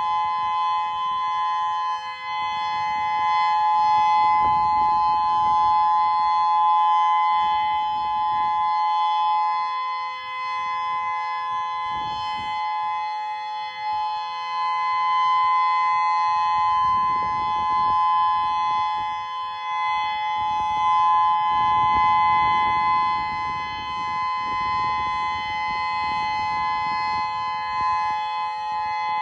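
Federal Signal Modulator 6048 electronic outdoor warning siren sounding its steady alert tone: one unwavering chord, strongest in two pitches close together, that neither rises nor falls. A low rumble comes and goes underneath.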